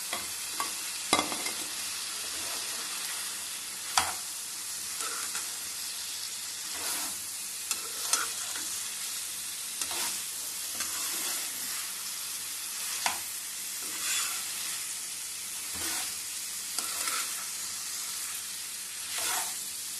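Fried cauliflower florets being stirred into sizzling onion, capsicum and sauce in a frying pan: a steady sizzle, with the spatula scraping and knocking sharply against the pan every few seconds.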